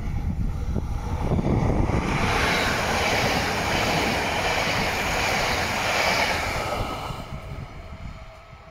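Electric multiple-unit passenger train passing at speed close by: a rushing wheel-on-rail and air noise that builds over the first two seconds, holds, and fades away after about seven seconds.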